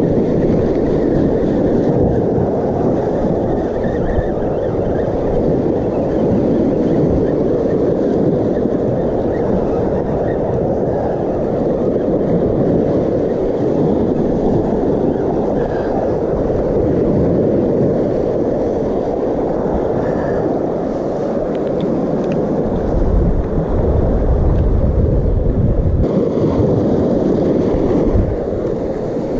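Wind buffeting the microphone over the steady wash of small waves breaking on a rocky shoreline, with heavier low wind rumble for a few seconds near the end.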